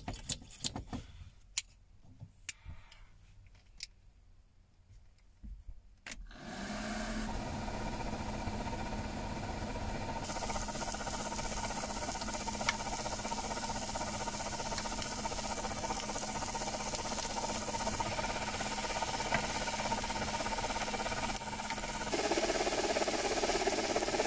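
A few light clicks and knocks, then about six seconds in a portable gas stove burner is lit and runs with a steady hiss. From about ten seconds, chopped onions and root vegetables sizzle as they fry in the pan, louder again near the end.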